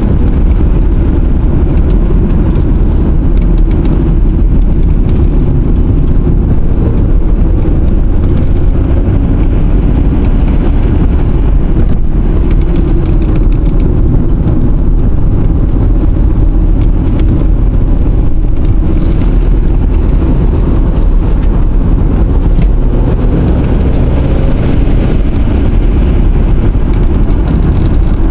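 A car driving, heard from inside the cabin: a steady, loud low rumble of engine and tyres on the road.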